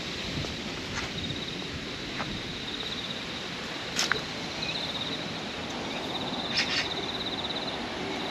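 Insect trilling in rapid pulsed runs at one high pitch, stopping and starting several times over steady outdoor background noise. There are a couple of brief clicks, about halfway through and again near the end.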